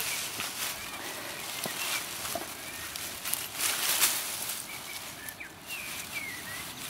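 Long grass rustling and brushing close to the microphone as it moves through the stems, with a few short, faint bird chirps early on and again near the end.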